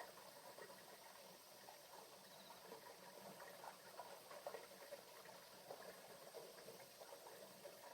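Faint water sounds: soft trickling with many small, irregular splashes and drips.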